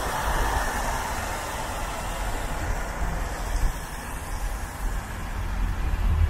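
Tyres hissing steadily on a wet road as a car travels through city traffic, over a deep road and engine rumble that swells near the end.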